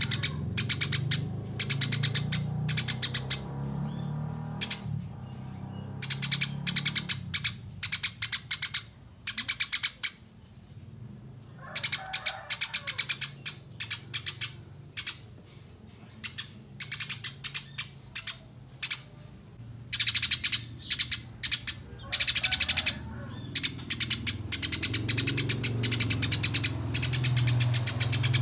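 Eurasian tree sparrows chirping in quick runs of sharp, high chirps broken by short pauses: the chattering of sparrows fighting. A low steady hum lies underneath.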